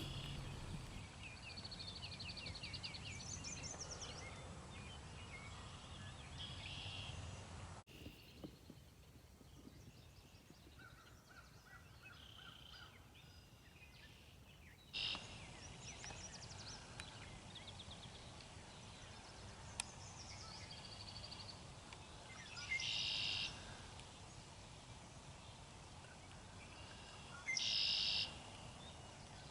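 Wild songbirds singing and calling in trilled phrases, with two louder short calls about two-thirds of the way in and near the end. The middle stretch is quieter.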